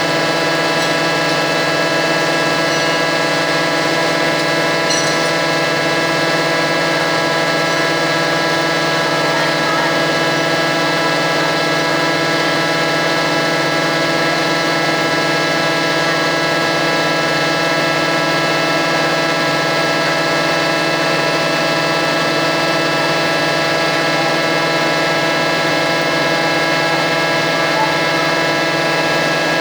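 Plywood mill machinery running: a steady, unchanging mechanical drone made of several fixed tones over a hiss.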